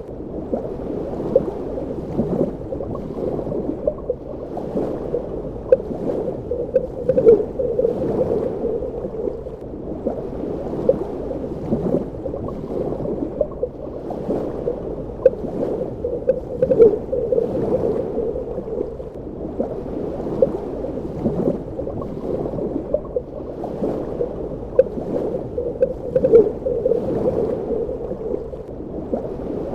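Underwater ambience: a muffled, continuous water rush with frequent small bubbling pops and gurgles.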